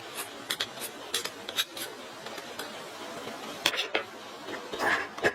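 Irregular light metallic clicks and clinks of hand tools and metal parts being handled during motorcycle engine or battery repair work, a dozen or so short knocks, busiest near the end.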